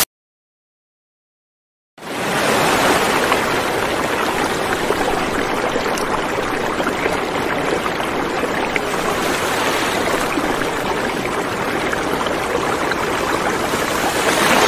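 Steady rushing noise, like running water or a low roar, fading in after about two seconds of silence.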